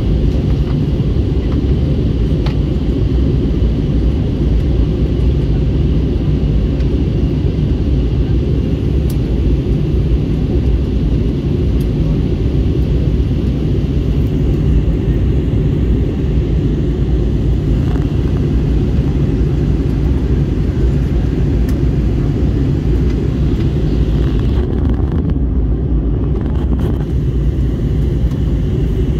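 Airbus A321neo cabin noise heard from a window seat: a steady low drone of jet engines and airflow during the descent toward landing.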